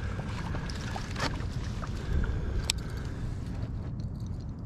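Steady low rumble of wind and water on the microphone of a fishing kayak, with two sharp clicks about one and nearly three seconds in, while the topwater lure is reeled back to the rod tip.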